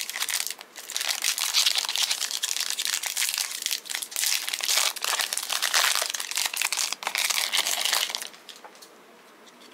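Wrapper of a Panini Prizm NBA trading-card pack crinkling as it is handled and opened by hand; the crinkling stops about eight seconds in.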